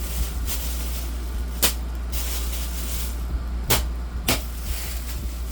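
Rustling and handling of the box fan's packaging, with three sharp knocks or clicks, over a steady low hum.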